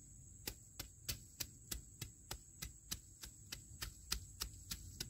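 Machete blade chopping and scraping into dry soil to cut out weeds, short sharp strokes at an even pace of about three a second. A faint steady high-pitched whine runs underneath.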